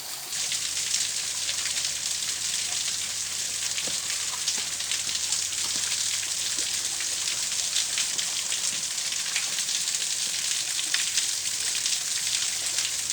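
Falling water of a waterfall splashing into its pool: a steady hiss with fine crackling spatter that cuts in suddenly just after the start.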